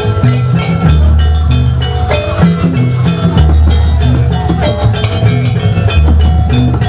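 Jaranan music played loud through a sound system: drum strokes and ringing metal gamelan-style percussion over long deep bass notes that come back every two to three seconds.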